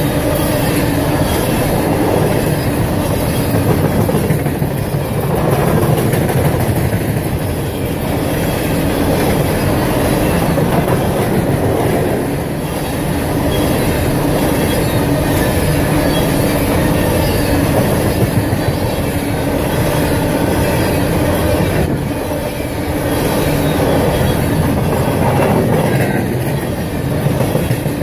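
Empty coal hopper cars of a freight train rolling past close by: a steady clatter of steel wheels on the rails, swelling and easing as the cars go by, with some wheel squeal.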